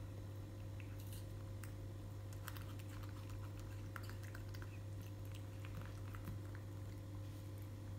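A baby monkey chewing a strawberry: small irregular wet clicks and smacks, over a steady low hum.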